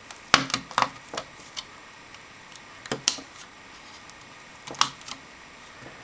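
Sharp plastic clicks and taps as DDR3 memory sticks are pressed down into the motherboard's slots and the retaining clips snap into place. There are several clicks in the first second and a half, a pair about three seconds in, and another pair near the end.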